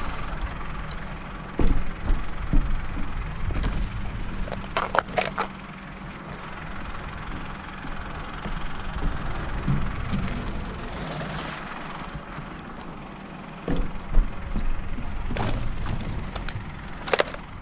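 An engine running steadily, with scattered knocks, clatters and cracks over it.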